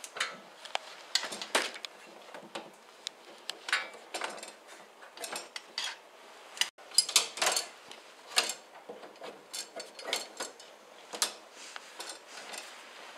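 Irregular light metallic clinks, taps and scrapes from a rigid new fuel line being handled and threaded into place in a car's front wheel well. The loudest cluster of knocks comes a little past halfway.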